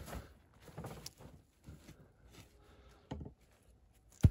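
Footsteps and shuffling in snow and sawdust while firewood is handled, with a smaller knock about three seconds in, then one sharp wooden thunk near the end as a log round is set down on the chopping block.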